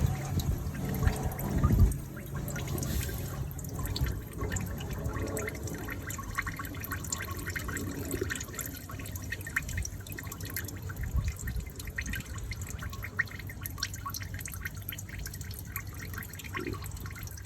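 Engine oil trickling and dripping from an open oil-pan drain hole into a catch pan, in many small irregular drips: the last of the oil draining out after the flush.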